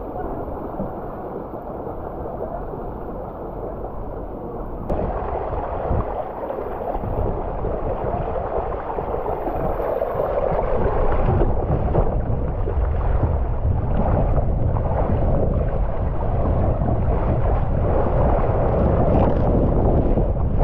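Water rushing through a waterslide flume, heard from the rider's own camera. About five seconds in it turns to water gushing from the slide's inlet jets, and from about eleven seconds it grows louder, with a low rumble of wind on the microphone as the ride gets under way.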